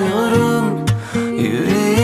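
Background music: a slow Turkish song with plucked acoustic guitar and a melody line.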